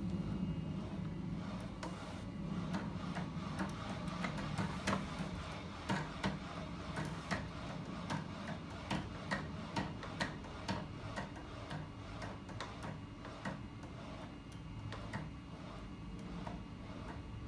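Home-built magnet-and-linkage 'ornithopter engine', its electric-driven flywheel and crank running with a steady low hum. Its linkages click rhythmically, about two clicks a second, and the clicking fades out in the last few seconds as the machine slows.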